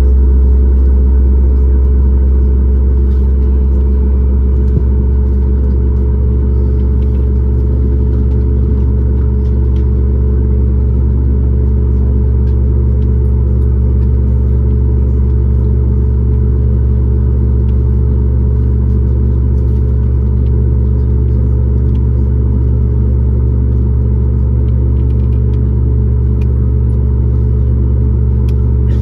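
Steady cabin drone of a Boeing 737 MAX 8 heard from a window seat just behind the wing: the CFM LEAP-1B engines and airflow make a loud, even low rumble with a constant hum that holds steady throughout.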